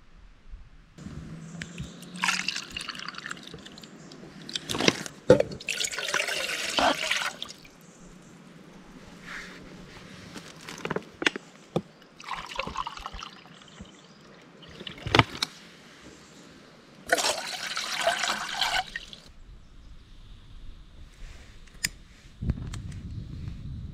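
Water sounds in four bursts of a second or two each, with sharp clicks and knocks between them.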